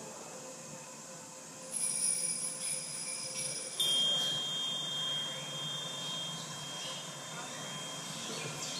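Small hanging metal cymbals ringing: one is struck about two seconds in and another, louder, about four seconds in, each leaving a clear high tone that rings on for several seconds.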